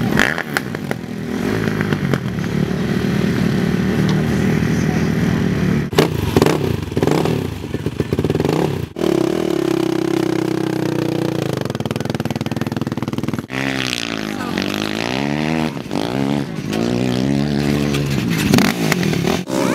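Small off-road engines (dirt bike and quad) running and revving. The pitch swings up and down repeatedly in the second half, and the sound breaks off and changes abruptly a few times.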